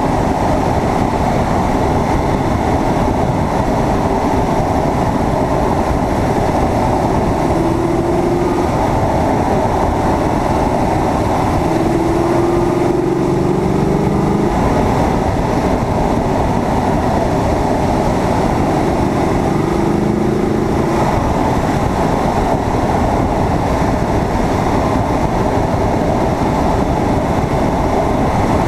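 Corvette V8 at speed, heard through heavy wind and road rush on an exterior-mounted camera. The engine note rises briefly a few times under acceleration.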